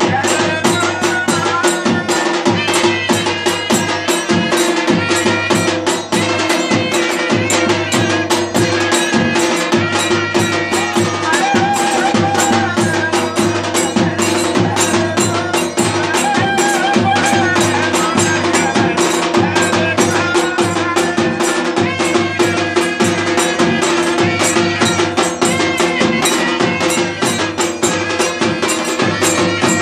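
Live Himachali folk music for a Nati dance: a barrel drum beaten in a steady, fast rhythm, with a wind instrument playing a wavering melody over a held tone.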